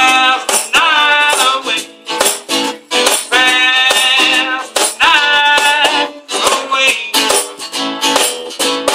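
Acoustic guitar strummed in a steady rhythm while a man sings into a microphone, his voice carrying three sung phrases over the strumming.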